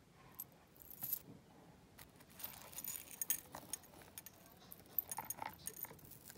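Metal costume jewellery being handled: a gold-tone chain bracelet with coin charms and other pieces clinking and jingling in a run of light, quick chinks, thickest in the second half.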